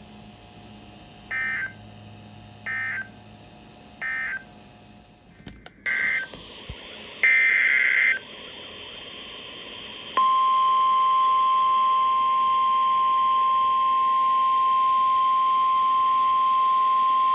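Emergency Alert System tones: three short bursts of warbling SAME digital data, the end-of-message code closing one alert, then a couple more data bursts of the next alert's header. About ten seconds in, a steady single-pitch NOAA Weather Radio warning tone near 1050 Hz starts and holds.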